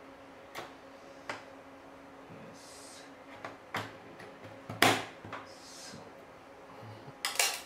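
Clicks and knocks of a PCIe host bus adapter card being fitted into the slot of an open metal server chassis, the card's bracket knocking against the case. The knocks are scattered, the loudest about five seconds in and a quick run of clicks near the end, over a faint steady hum.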